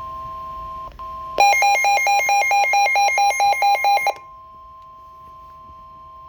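Weather radio alert tones announcing a warning broadcast. A steady electronic tone breaks off briefly, then comes back. From about a second in, a loud, buzzy, fast-alternating electronic beeping runs for nearly three seconds. After that the steady tone carries on more quietly.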